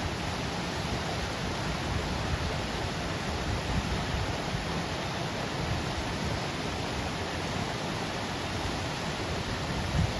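Waterfall: a steady, continuous rush of falling water.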